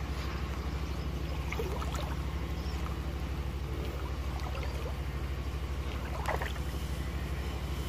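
A steady, low pulsing drone, like a small engine running, under a few light splashes as hands grope in shallow water, about one and a half to two seconds in and again near six seconds.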